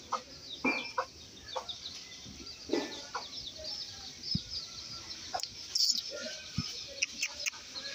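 Birds in the yard: short hen-like clucks now and then among many faint high chirps, with a few sharp clicks in the second half.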